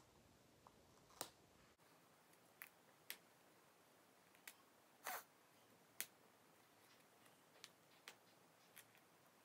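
Faint, scattered clicks and crinkles of a Toybox Lollipop candy-toy package being opened by hand, with a slightly longer rustle about five seconds in.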